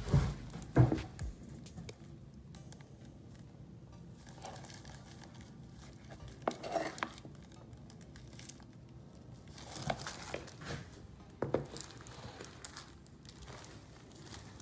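Tint brush stirring and scraping a thick hair-bleach mixture in a plastic mixing bowl, with scattered knocks against the bowl, the loudest in the first second, and plastic gloves crinkling.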